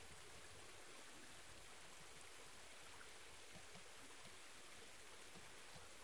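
Faint, steady trickle of a shallow mountain stream running over rock slabs, its flow thin from drought.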